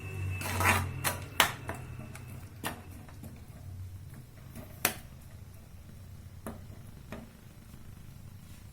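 A spoon knocking and scraping against a kadhai while jaggery cooking in it is stirred: a quick cluster of clatter in the first couple of seconds, then single knocks a second or more apart, over a low steady hum.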